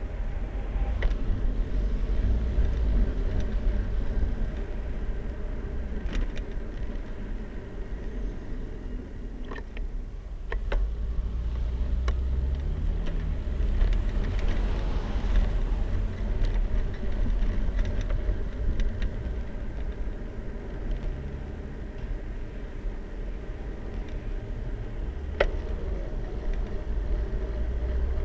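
Steady wind and road rumble on a bicycle-mounted camera riding alongside a queue of slow-moving cars and a bus, with a few sharp clicks and rattles from the bike.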